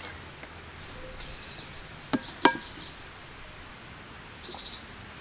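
Two sharp knocks about a third of a second apart, the second with a brief ring, as a cup and a plastic water bottle are handled and set down on a camp table. Faint high chirps sound over quiet outdoor ambience.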